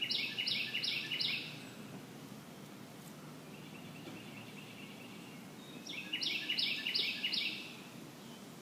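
A bird calling in two quick series of four or five harsh repeated notes, one at the start and one about six seconds in, over steady low background noise.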